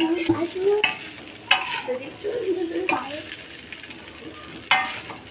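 Fried rice sizzling in a hot wok while a metal spatula stirs and scrapes it against the pan. There is a steady high sizzle under irregular scrapes, with one sharp clink near the end.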